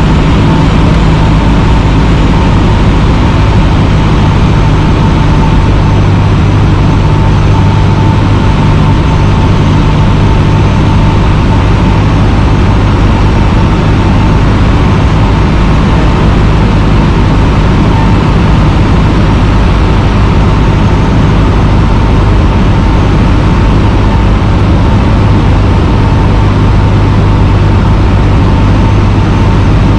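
Cessna 150's four-cylinder Continental O-200 engine and propeller droning steadily and loudly at constant power, a low hum with a thin steady whine above it.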